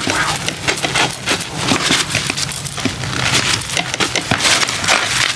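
Writing on a paper desk calendar close to the microphone: a dense, uneven run of small scratches and clicks, over a faint low hum.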